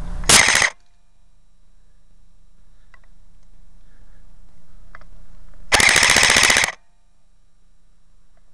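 Airsoft rifle firing on full auto from close to the microphone: a short burst just after the start, then a longer burst of about a second some five seconds later.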